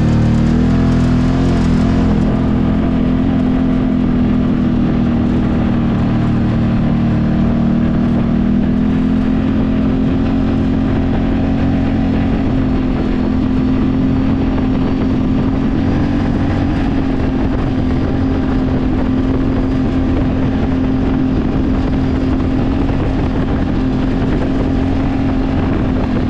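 Can-Am Maverick side-by-side's engine running loud and steady under way, holding an even pitch.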